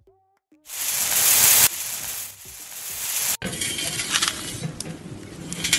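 Harsh scraping and rasping, like a punched-metal grater sheet being rubbed over a head of hair. The sound starts loud about half a second in, cuts off abruptly about three seconds in, then goes on as a rougher, crackly scrape.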